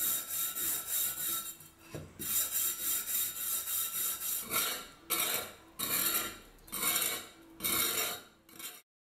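Rust being scrubbed off a steel hand-pump barrel with a red abrasive in quick back-and-forth strokes, about four a second. After about five seconds these give way to five slower, longer scraping strokes with a wide metal scraper.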